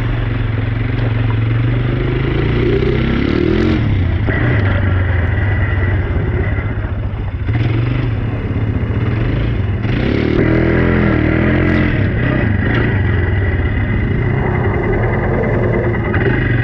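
ATV engine running under way, its revs rising and falling as it is ridden, with a few short knocks from the machine over rough ground.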